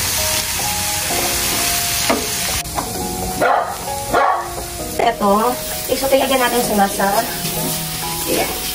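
Minced garlic and chopped shrimp frying in oil in a nonstick pan: a steady sizzle, with a silicone spatula stirring and scraping, as the garlic is browned. Background music with held tones plays over it, and from about five seconds in there is a run of short wavering pitched sounds.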